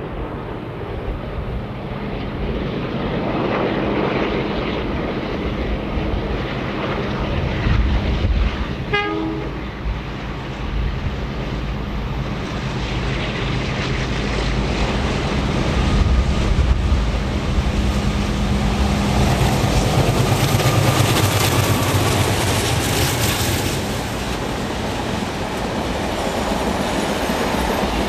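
Two ALCO diesel-electric locomotives, an NSW 44 class and a 45 class, working a passenger train, their engines running steadily under load as they approach and go past. The sound grows louder into a heavy rumble of wheels clacking over the rail joints as the carriages roll by.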